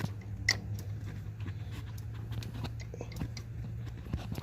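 Light metallic clicks and ticks as a pipe wrench turns the crankshaft of a 5.3 L LS V8 by hand to bring a torque converter bolt into reach, over a steady low hum.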